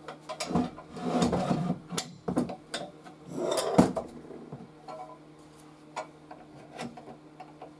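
Handling noises of an air compressor being assembled: the metal tank tipped over and shifted on a workbench while an axle and plastic wheel are pushed into place, with rubbing, scraping and knocks. The loudest knock comes about four seconds in, followed by a few light clicks.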